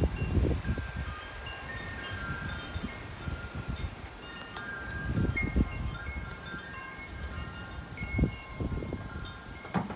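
Wind chimes ringing irregularly at several pitches as 30 mph gusts blow, with gusts buffeting the microphone as a low rumble, strongest at the start, about halfway through and near the end.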